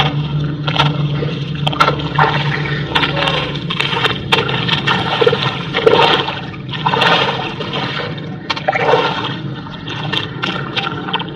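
Shallow muddy water sloshing and splashing in surges as a pole and hands work through it, with scattered sharp clicks. A steady low hum fades out about three and a half seconds in.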